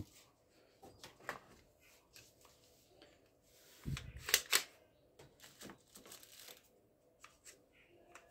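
Light plastic clicks and rattles of a plastic toy pistol being handled, with a dull knock and a quick run of louder clicks about four seconds in.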